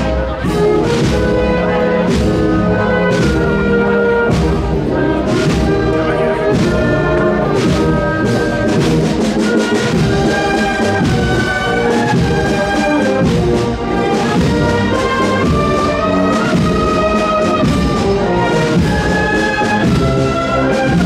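A brass band with drums playing a Holy Week processional march: sustained brass chords over a steady drum beat.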